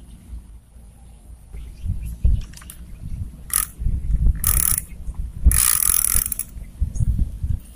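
Handling noise as a bamboo fishing rod is lifted and moved. Irregular knocks and bumps sit close to the microphone, with a few short rushes of rustling noise between about three and a half and six seconds in.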